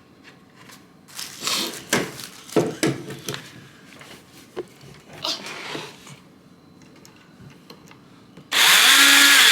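Handling and scraping of shelf parts and screws, then near the end a power drill runs for about a second with a steady motor whine, driving a screw into the wooden bookshelf.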